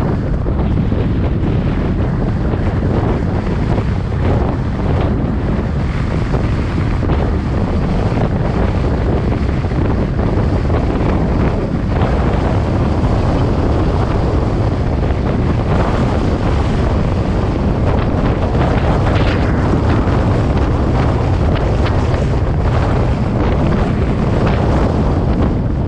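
Steady wind rush buffeting the microphone over the rumble of a car driving at speed on an expressway.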